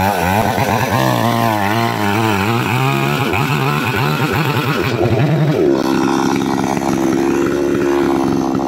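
Chainsaw cutting into a thick, hard chestnut beam, its engine pitch wavering up and down under load. About five and a half seconds in, the pitch rises and holds steady at high revs.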